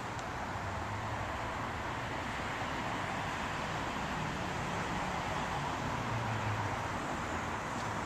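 Steady road-traffic and urban background noise with a low hum that swells and fades.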